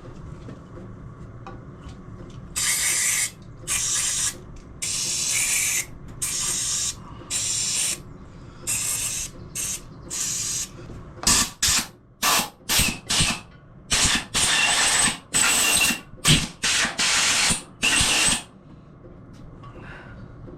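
Aerosol brake cleaner sprayed in about twenty short bursts of hiss, some under a second and some near a second long, blasting out threaded bolt holes in an engine crankcase to clear them. The bursts start a few seconds in, come quickest in the middle and stop shortly before the end.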